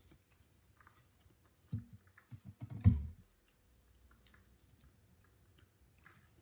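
Small plastic toy pieces of a Schleich rabbit hutch being handled and clicked into place on a tabletop: scattered light clicks, with a burst of louder knocks about two to three seconds in.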